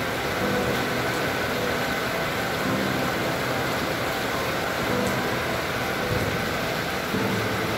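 Steady rushing noise of a rainstorm, wind and rain on the microphone, with no clear single event.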